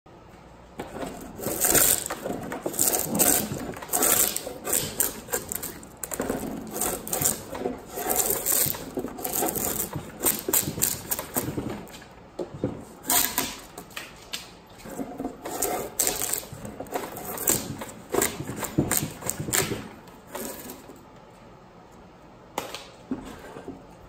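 Drawknife shaving bark off the edge of a wood slab: repeated scraping strokes with bark crunching and tearing away, fading to a few light strokes near the end.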